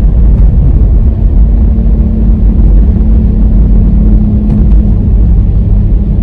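Car driving with a steady low rumble and a droning hum that sets in about a second in: the running noise of a faulty rear wheel hub bearing.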